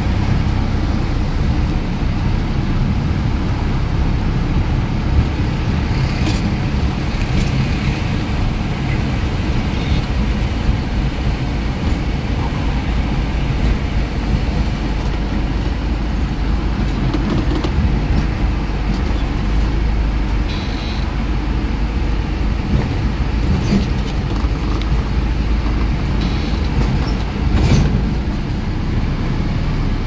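Songthaew pickup truck driving along a road, heard from on board: a steady low rumble of engine and tyres, with short rattles now and then.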